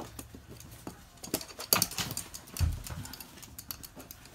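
Toy poodle's claws clicking and tapping on a hard floor as it walks, with a single dull thump about two and a half seconds in.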